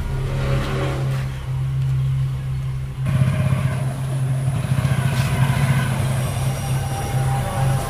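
Motorcycle engine running steadily at idle, with a fuller, more throbbing sound from about three seconds in.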